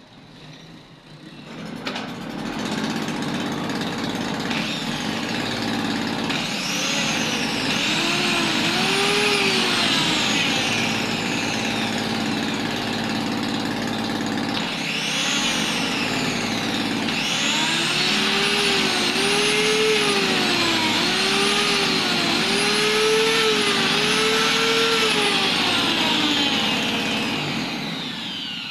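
Small electric angle grinder running after its carbon brushes were reconnected. The motor spins up about two seconds in and keeps up a loud high whine whose pitch repeatedly rises and falls every couple of seconds, then dies away near the end.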